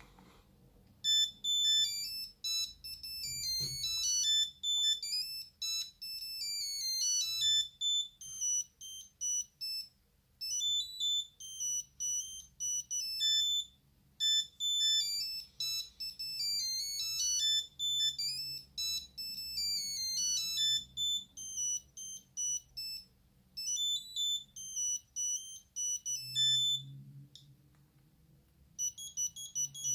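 A Nokia 8210 mobile phone playing one of its built-in monophonic ringtones: a fast melody of thin, high beeping notes, its phrase played twice with a short pause between. It stops a few seconds before the end, and another ringtone starts just before the end.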